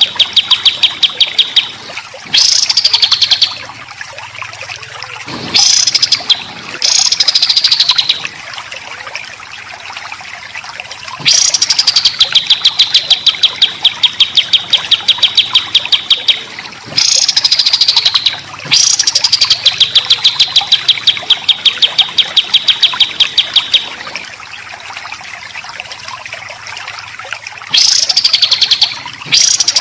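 Songbird singing rapid-fire 'tembakan' notes: long runs of fast, evenly repeated high chips lasting several seconds, broken every few seconds by short loud phrases that sweep down in pitch. This is the rapid, rough song used as a masteran to train competition songbirds.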